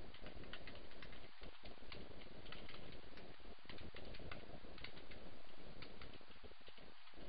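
Computer keyboard keys clicking as someone types, several keystrokes a second at an uneven pace, over a steady background hiss.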